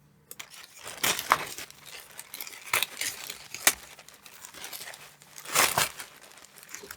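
A shipping package being torn open and its wrapping crinkled and crumpled by hand, in irregular crackles with several louder rips.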